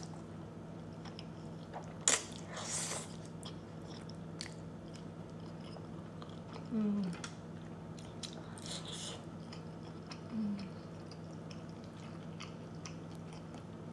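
Close-up mouth sounds of eating creamy shrimp linguine alfredo: chewing and wet lip smacks as forkfuls of noodles are taken in, with a sharp smack about two seconds in.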